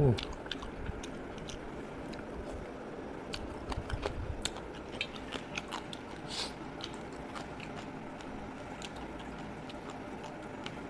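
Close-miked eating sounds of fish curry eaten by hand: wet chewing and lip smacks with scattered small clicks, busiest a few seconds in, and a louder mouth sound right at the start.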